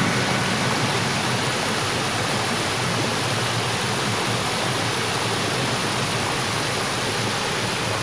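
Flowing stream water rushing steadily, an even hiss with no breaks.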